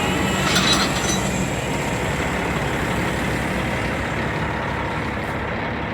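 Heavy diesel engine running steadily, with a brief metallic rattle about half a second in.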